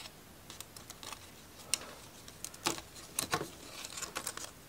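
Irregular light clicks and taps of thin laser-cut plywood model-kit parts being handled and shifted, sparse at first and coming more often in the second half.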